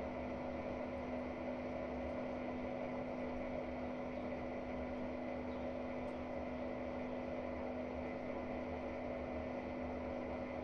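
Hotpoint-Ariston AQ8L washing machine with an inverter brushless motor, drum spinning at a steady speed: a steady hum with a constant motor whine.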